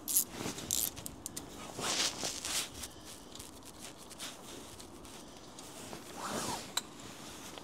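Hand ratchet on a TX30 Torx socket clicking in short runs, with metal scraping, as the bolt is worked loose.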